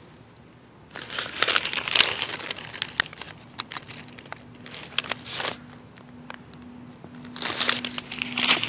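Dry fallen leaves crackling and crinkling in three bursts, about a second in, around five seconds in and near the end, with small sharp clicks scattered between.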